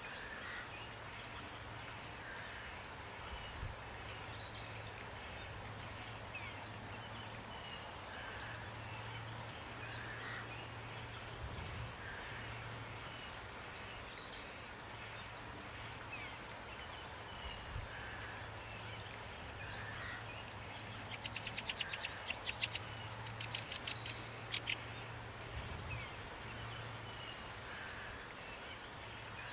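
Steady rain hiss with small songbirds calling over it: short, high chirps and falling notes repeated every second or two, and a rapid rattling trill about three-quarters of the way through. A low hum comes and goes underneath.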